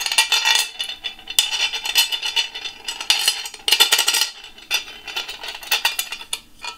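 Small metal bolts clinking and rattling against a metal plate as they are handled and pushed through its holes, in quick irregular bursts.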